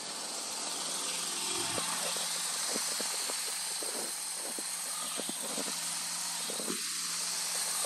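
Porsche 911 Black Edition's flat-six engine idling steadily during warm-up after a cold start, with light footsteps on paving stones.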